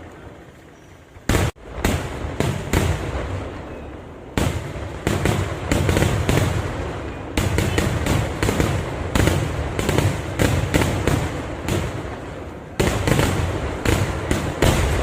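Fireworks going off in a rapid barrage of loud bangs, several a second, in volleys with brief lulls between them.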